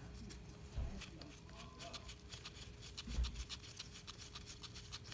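Bolts being spun out by hand from a Nissan 240SX power steering pump housing: faint small metallic clicks and handling noise, coming as a rapid run of clicks in the second half. Two dull thumps, about a second in and about three seconds in.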